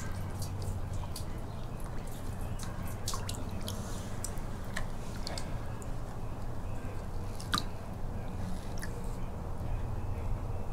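Water dripping and trickling in scattered small drops off a plastic gold pan into a tub of water, over a steady low hum.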